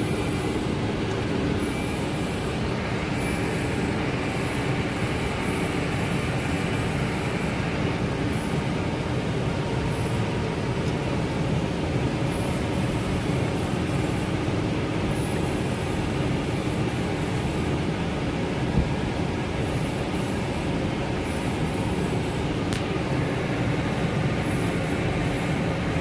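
Tractor engine running steadily under load, heard from inside the cab as the front-end loader pushes through drifted snow.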